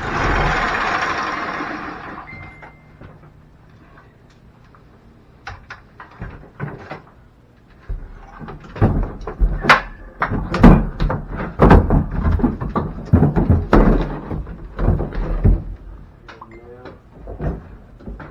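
Irregular wooden knocks, clunks and bumps as the old wooden attic ladder is worked loose and handled, most of them in the middle of the stretch. At the start a loud rushing noise, likely a power tool, dies away over about two seconds.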